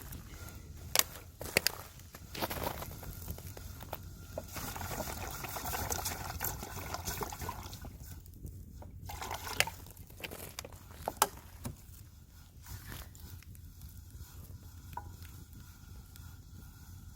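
Pine-wood campfire crackling with a few sharp pops, and a few seconds of steady liquid sound about halfway through.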